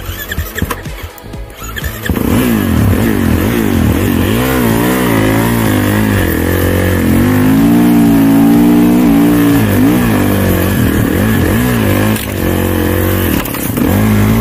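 Tracked snowbike's motorcycle engine revving hard while riding through snow, its pitch rising and falling again and again. It is quieter with scattered clicks for about the first two seconds, then runs loud.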